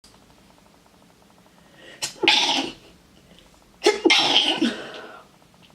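A person sneezing twice: a short sneeze about two seconds in, then a second, longer one about a second and a half later.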